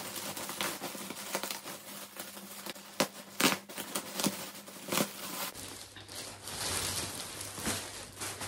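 Plastic mailing bag crinkling and rustling as it is cut open with scissors and a cushion is pulled out, with a few sharp snaps and crackles between about three and five seconds in.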